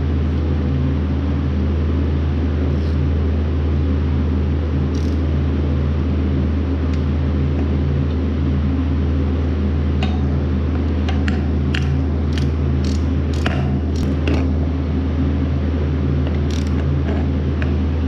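A steady low hum throughout, with a string of sharp metal clicks and taps starting about ten seconds in, as bolts are set into the steel halves of a planter gauge wheel and a socket ratchet is worked onto them.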